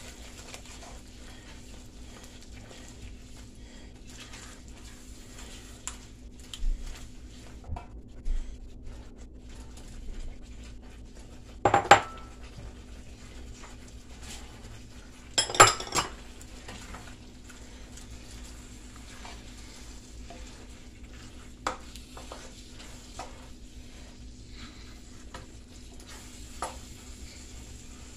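A spatula stirring and scraping through shrimp and sausage in tomato sauce in a nonstick wok, with light sizzling. Now and then there are sharp clanks against the pan; the loudest come about 12 and 16 seconds in. A low steady hum runs under it.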